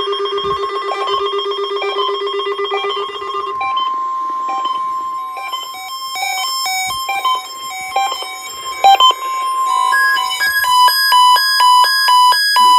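Several NOAA weather radio receivers sounding their alert alarms at once, set off by the weekly test's SAME alert signal. A rapidly pulsing low buzz stops about three and a half seconds in. A steady high tone then runs under overlapping electronic beeps of different pitches and rhythms, which grow busier near the end.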